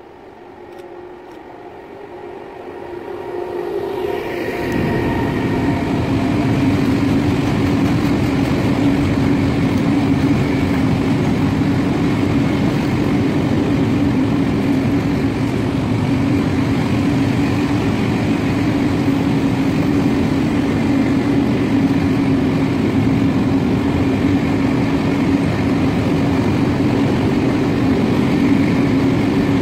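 Freight train passing close through a station. Its sound grows over the first few seconds as the locomotive approaches, then the long string of wagons rolls past with a loud, steady rumble and a constant hum.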